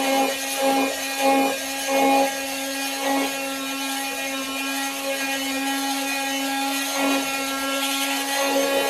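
Handheld power tool running at a steady pitch while it is pressed against material, the sound swelling in rhythmic strokes over the first three seconds, then running more evenly.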